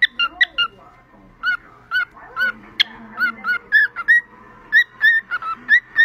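Cockatiel whistling a tune: a string of short, clear notes, many sliding upward, in an uneven rhythm with brief pauses.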